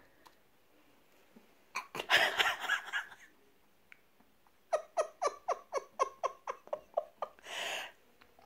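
A person laughing: a breathy burst about two seconds in, then a run of short, quick "ha" pulses, about five a second, ending in a breath.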